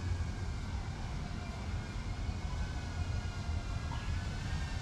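FPV drone's motors whining faintly in flight, several pitches drifting slightly up and down, over a steady low rumble.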